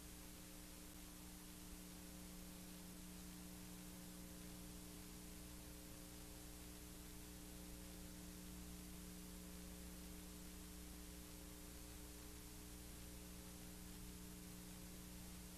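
Near silence: a steady faint electrical hum with hiss, with no other sound, the empty soundtrack of a silent home-movie transfer.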